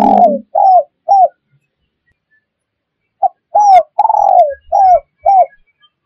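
Spotted dove (tekukur) cooing in a lure recording: short, falling coos. One phrase trails off in the first second or so, then after a pause of about two seconds a second phrase of five coos follows.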